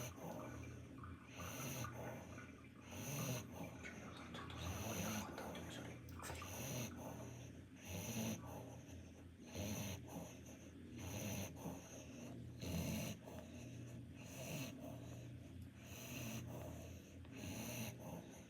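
A Pomeranian snoring in its sleep, a faint snore with each breath about every second, over a low steady hum.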